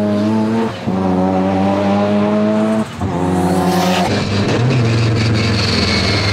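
Mazda RX-7's 20B three-rotor twin-turbo rotary engine running hard on track at a steady high pitch, with two brief dips in sound about one and three seconds in. About four seconds in, the engine is heard from inside the cabin, lower and rougher.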